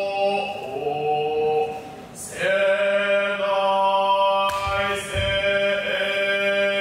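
Buddhist shōmyō chant by a male voice, in long held notes that break and resume, over a steady low drone. A couple of low thuds come a little after the middle.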